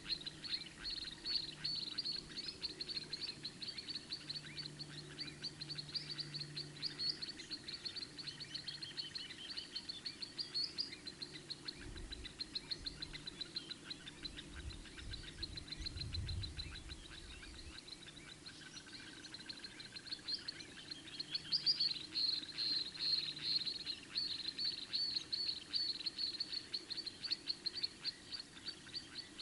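A continuous chorus of fast, high-pitched chirping from small wild animals, with a low rumble for a few seconds in the middle.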